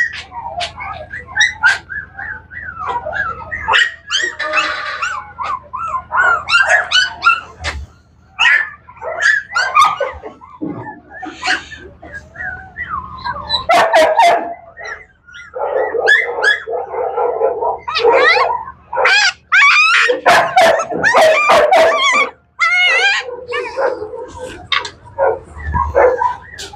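Month-old Griffon puppies yelping and whining over and over in high cries that bend up and down, while being held for their first vaccination injection.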